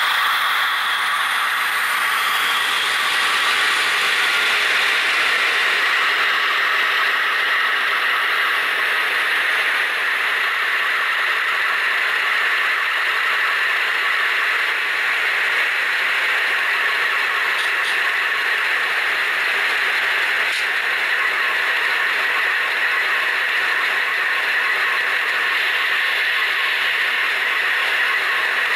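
HO scale model train rolling past: a steady rattling whir of its wheels and drive on the track.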